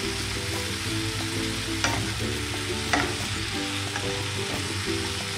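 Sliced mushrooms and melting butter sizzling in a hot frying pan while a wooden spatula stirs them, with two sharp knocks of the spatula against the pan about two and three seconds in.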